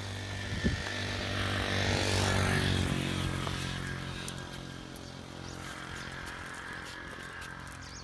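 Engine of a passing motor vehicle, a steady low hum that grows louder to a peak about two to three seconds in, then fades away.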